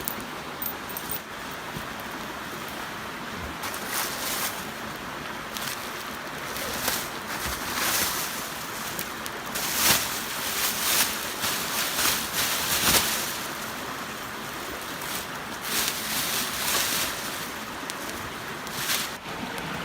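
Sleeping bag and tarp fabric rustling in irregular bursts as someone climbs into the bag, over a steady background hiss.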